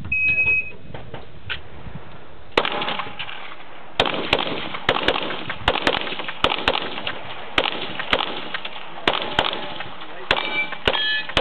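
Shot timer's start beep, then a string of pistol shots, about two a second, with steel targets ringing after several hits near the end.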